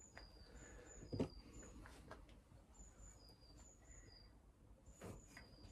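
Two faint metallic knocks, about a second in and near the end, from a VW stroker crankshaft rocking in a bare engine case half: the clunk of a main bearing that is not seated properly. Faint bird chirps repeat in the background.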